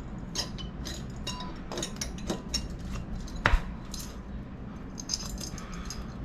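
Light metal clinks and taps of engine parts and hand tools being handled during a motorcycle engine's top-end reassembly, with one sharper knock about three and a half seconds in.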